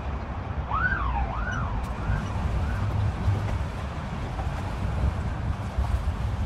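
Emergency vehicle siren wailing up and down in quick cycles, four sweeps that grow fainter and fade by about three seconds in, over a steady low rumble of traffic and wind noise.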